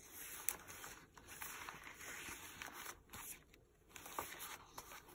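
Paper pages of a handmade junk journal being handled and turned: a faint, uneven rustle with a few light ticks.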